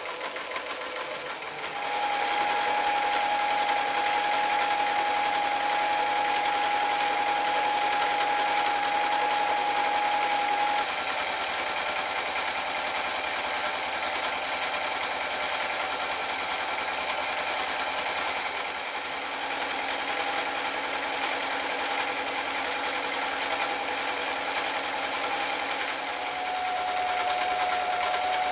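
Toyota 9090 electric sewing machine running and stitching through heavy fabric, with a steady motor tone over the stitching. It picks up speed and gets louder about two seconds in, eases off a little partway through, and speeds up again near the end.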